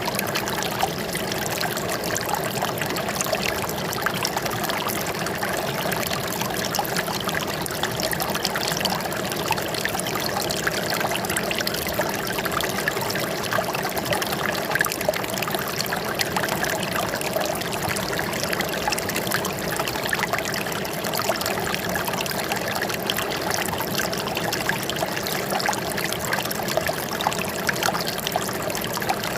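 Running water trickling steadily, with a constant splashing and gurgling flow.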